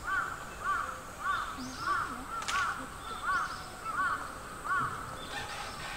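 A bird calling repeatedly: eight short, arched calls at an even pace, about one and a half a second, stopping shortly before the end.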